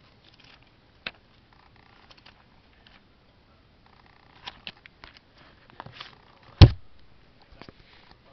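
Paper pages of a thick service manual being handled and turned, with scattered rustles and small clicks, then a single loud thump about two-thirds of the way through as the book is shut.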